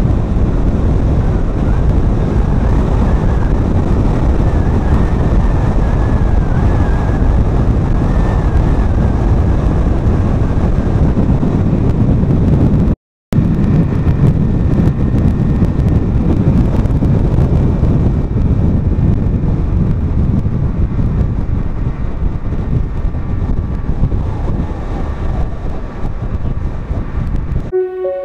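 Steady road and wind noise from a moving car, with wind rumbling on the microphone. The sound drops out for a split second about thirteen seconds in, and soft music begins just before the end.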